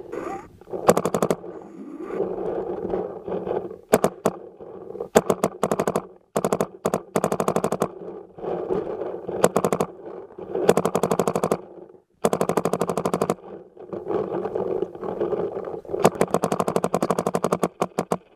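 Paintball markers firing in rapid strings of shots, a dozen or more a second, in repeated bursts with short pauses between, over a steady din of further fire.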